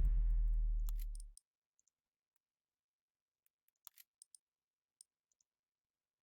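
A loud low electrical hum that stops suddenly about a second and a half in, followed by a few faint clicks.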